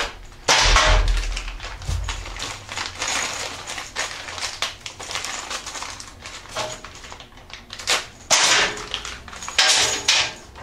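A foot peg extender kit being unpacked by hand: its packaging and small hardware rustle and click. There are louder bursts of rustling about half a second in, around eight and a half seconds, and near ten seconds.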